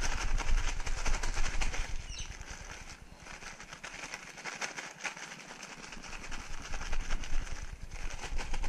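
Brown paper bag being shaken hard with pieces of flathead tail and plain flour inside, a rapid crackling rustle of paper as the fish is coated in flour. It eases off about three seconds in and picks up again for a couple of seconds near the end.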